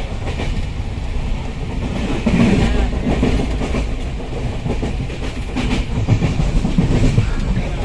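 Running noise of an Indian Railways Poorva Express passenger coach at speed, heard from inside through an open barred window: a loud steady rumble of wheels on the rails with irregular clickety-clack clatter, busiest near the end.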